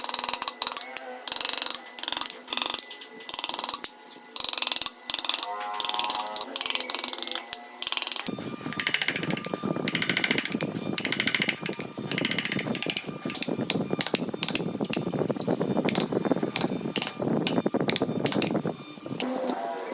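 Hand tool scraping a wooden carving in repeated strokes, about one or two a second. About eight seconds in, the sound turns denser and fuller, with fast strokes close together, and this goes on until near the end.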